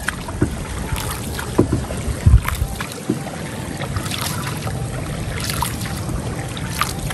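A single wooden paddle dipping and pulling through river water beside a small paddled boat, with splashes and drips at each stroke, over wind rumble on the microphone.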